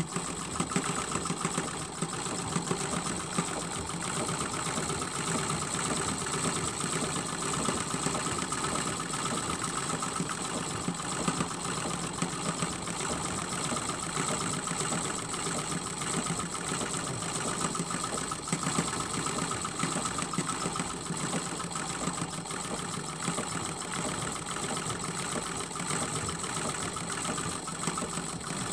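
Sewing machine running steadily at speed, stitching a quilt.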